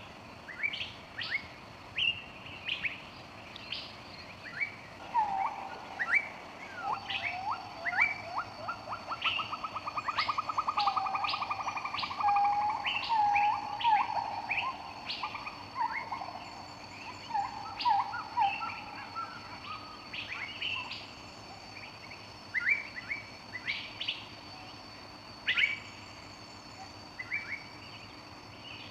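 Birds chirping and calling, with many short, sharp, high chirps throughout. A rapid lower trill and warbling calls come between about five and fifteen seconds in. A steady high ringing tone joins about seven seconds in and holds.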